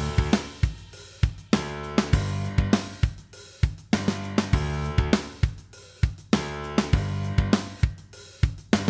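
Background music with a drum-kit beat of kick, snare and hi-hat over sustained bass notes.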